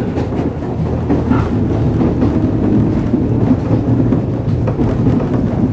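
JR East 113 series electric multiple unit running, heard from inside a motor car: a steady low rumble of wheels on rail and traction gear, with scattered clicks from the track.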